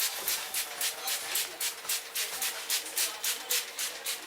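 Fingers scratching and rubbing briskly through hair and scalp in a fast, even rhythm of about four to five strokes a second, as in an intense scalp-scratching head massage.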